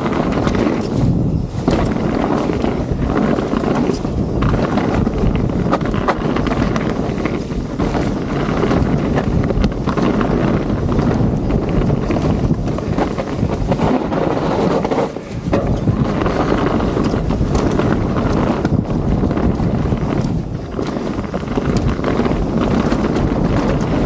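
Wind rushing over the microphone of a mountain bike descending a fast dirt trail, mixed with tyre noise and scattered clicks and rattles from the bike. The rush drops briefly about fifteen seconds in.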